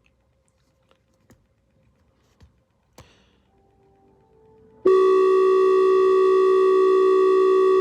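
Near silence with a few faint clicks, then about five seconds in a loud, steady electronic tone with many overtones starts abruptly and holds without change. It is an alert or error tone in an Emergency Alert System scenario video.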